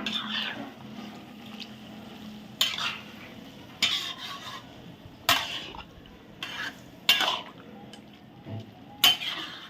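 A metal ladle stirring and scraping around a large cooking pot of brinjal thokku gravy with coconut milk added. There are about six separate strokes a second or so apart, over a faint steady background.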